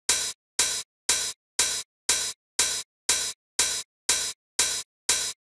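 A sampled open hi-hat playing on its own at 120 BPM, one hit every half second: eleven short, hissy hits, each choked off after about a quarter second.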